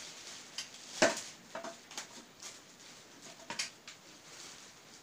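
Handling sounds from wire being fastened to a paper sky lantern's rim: crinkling of the lantern paper and a handful of short sharp clicks, the loudest about a second in and another small cluster past three seconds.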